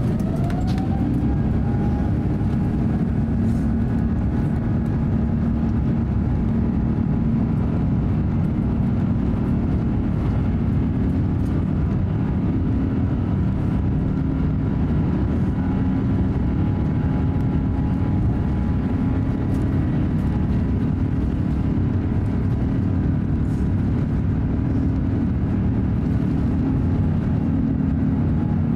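Cabin sound of an Airbus A350-900 on its takeoff roll. The Rolls-Royce Trent XWB engines' whine rises over the first couple of seconds to takeoff thrust, then holds steady over a loud, deep rumble.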